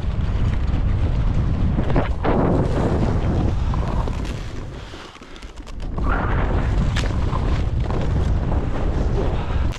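Wind buffeting the microphone of a skier's helmet-mounted camera during a fast descent, heard as a heavy low rumble, with the hiss of skis cutting through snow. It surges at about two seconds and again at six seconds, and drops off briefly around five seconds in.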